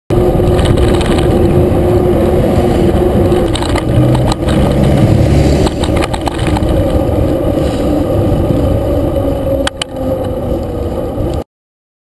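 Wind rushing over a bicycle-mounted camera's microphone and road noise while riding along a road, with a motor vehicle's engine humming. Two sharp knocks, about four seconds in and near the end.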